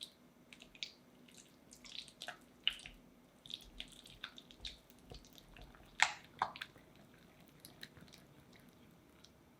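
Scattered soft wet clicks and squishes of a utensil working a soft, sticky ingredient, the loudest pair about six seconds in.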